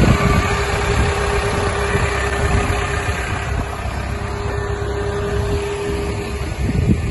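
Caterpillar hydraulic excavator's diesel engine idling steadily, a low rumble with a constant hum over it.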